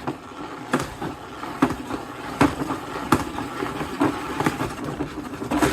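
Salad spinner whirring as it spins a batch of wet Lego bricks, with the bricks rattling against the bowl and a sharp click roughly once a second as it is driven.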